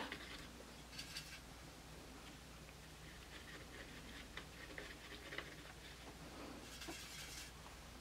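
Faint scratching and light ticks of a paintbrush picking up paint from the pans of a metal watercolour palette tin, in short scrubbing spells about a second in, through the middle, and again near the end.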